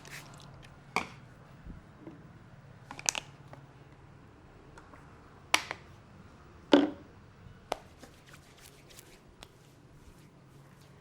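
A barber's hands at work during a head massage, making sharp slaps, claps and cracking pops at irregular intervals. There is a quick triple about three seconds in, and the loudest strike comes near seven seconds.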